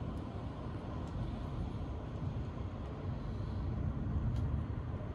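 Distant thunder rumbling low and deep, swelling to its loudest about four seconds in, then easing off.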